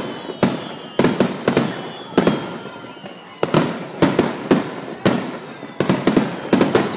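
Aerial firework shells bursting overhead in a rapid, irregular string of bangs, with a short lull about halfway through. A faint whistle falls slowly in pitch during the first couple of seconds.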